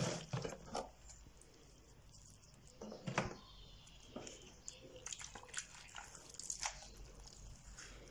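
Faint wet rustling and squishing of brined grape leaves being lifted from a steel pot, folded and packed by hand, broken by a few short clicks.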